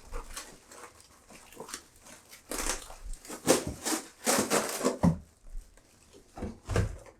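Irregular rustling and crinkling of plastic packaging as chair armrests are unwrapped and handled, in short bursts with a few brief pauses.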